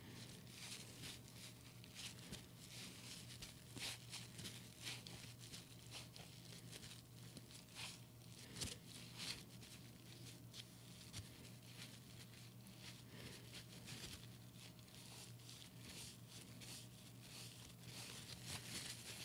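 Faint, irregular rustling and crinkling of a paper towel wiping up spilled nicotine liquid, over a low steady hum.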